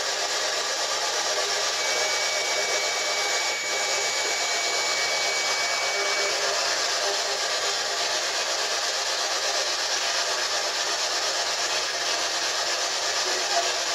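Steady, even hiss like static, with a faint thin high whistle from about two to six seconds in.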